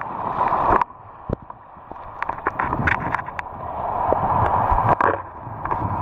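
Small sea waves washing over sand and shallow rocks right at the microphone, sloshing and fizzing with foam and crackling with small splashes. Each surge builds and then cuts off suddenly, about a second in and again near five seconds.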